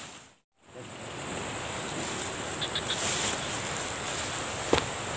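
Steady high-pitched chirring of insects, with rustling footsteps through grass and crops and one sharp knock near the end. The sound drops out completely for a moment just after the start.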